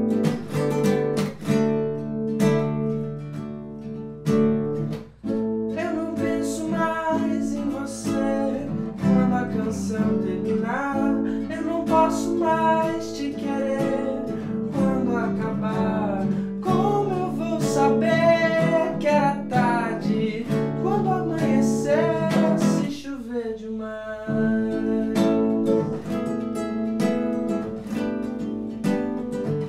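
Nylon-string acoustic guitar played fingerpicked and strummed, with a wordless voice singing along through the middle. The music briefly drops away a little after twenty-three seconds in, then the guitar picks up again.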